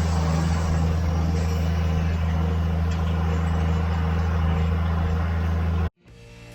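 Steady low drone of a tractor engine pulling a hay baler, cutting off abruptly near the end.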